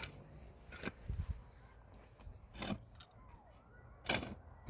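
Three short, sharp strikes or scrapes at irregular spacing, with a faint falling whistle-like tone between the second and third.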